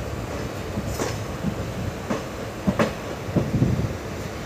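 Train running on the track: a low rumble of wheels, with a few sharp, irregular clacks as they cross rail joints.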